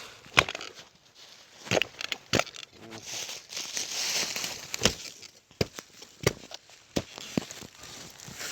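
Shovel digging into root-filled forest soil: a series of sharp, irregularly spaced strikes with crunching and scraping of dirt between them.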